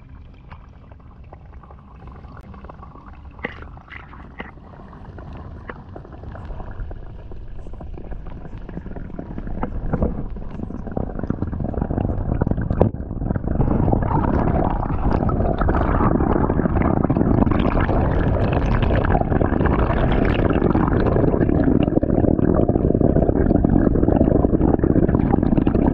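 Stream water rushing and gurgling close to the microphone, building up about ten seconds in and louder and denser from about thirteen seconds on, with a few light knocks around four seconds in.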